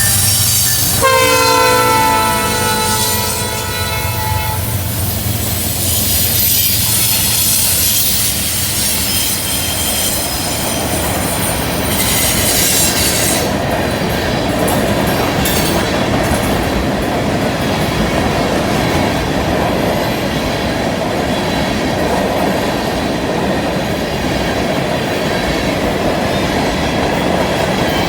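Diesel freight train passing: the locomotive's multi-note horn sounds through the first few seconds, its chord sliding down in pitch as it goes by. Then come the locomotives and a steady rumble of freight cars, with wheels squealing on the curve from about six to fourteen seconds in and a faint clickety-clack of wheels on rail joints.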